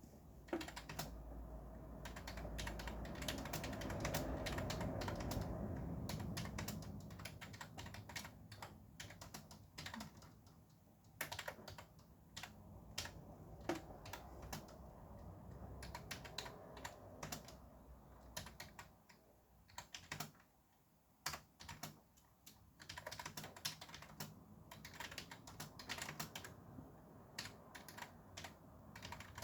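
Fast typing on a computer keyboard, a dense, irregular run of key clicks that thins out briefly about two-thirds of the way through. Background traffic noise rumbles underneath, swelling and fading over the first several seconds.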